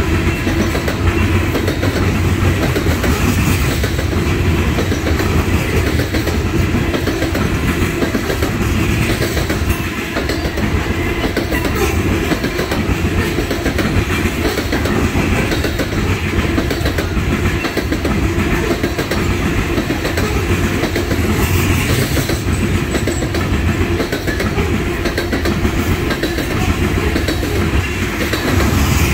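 Loaded coal cars of a freight train rolling past on the nearest track: a steady, loud noise of steel wheels running on the rails.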